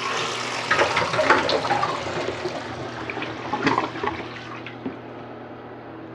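Toilet flushing: a sudden rush of water with gurgling that is loudest over the first few seconds, then dies down.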